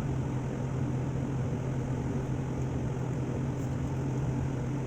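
Steady low machine hum with an even hiss, unchanging throughout, like a room appliance running.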